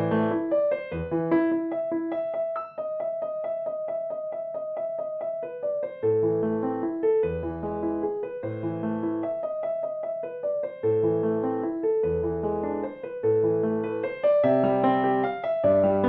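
Background instrumental piano music: a melody over a repeating bass pattern, with a stretch of quick repeated notes in the first part.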